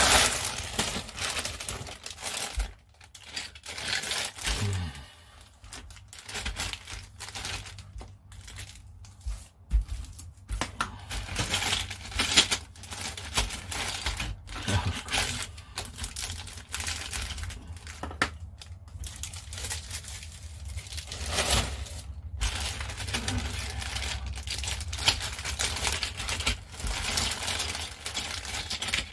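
Plastic bags crinkling and rustling, with scattered light clicks of hard plastic, as a model kit's clear plastic sprues are handled and unpacked.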